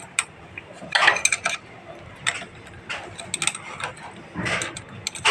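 Scattered light metallic clicks and clinks from hand work on a motorcycle engine's valve rocker tappet adjusters, as the clearance is tightened to cut the rocker's clatter.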